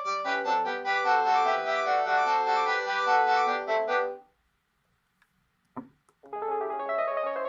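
Panasonic KX-PRS110 cordless phone playing a piano-like ringtone melody that stops about four seconds in. After a short silence and a click, a different ringtone melody starts.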